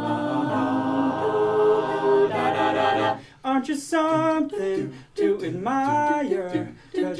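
Mixed a cappella group of eight voices singing wordless backing chords over a low bass line. The chords are held for the first three seconds, then break into short, clipped phrases with brief gaps between them.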